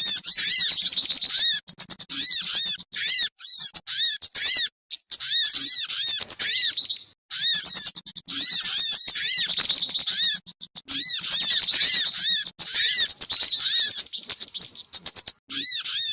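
Dense, loud, high-pitched chattering of small songbirds in a bird-trapping lure recording: fast trills over a steady string of short arched notes, broken by brief pauses about five, seven and fifteen seconds in.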